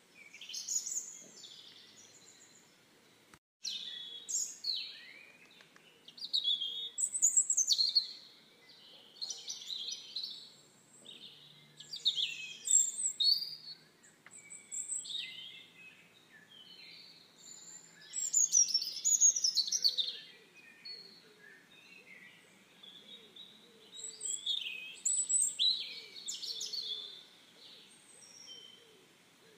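Songbirds singing: varied chirps, trills and short phrases coming in bouts every few seconds, with a brief break in the sound about three and a half seconds in.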